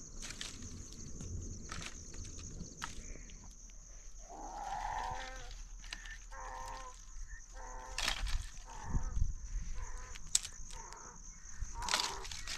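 Dry branches rustling and snapping as they are handled and broken for a firewood pile, sharp cracks loudest about two-thirds in and near the end. Goats and sheep bleat repeatedly, in short calls from about a third of the way in.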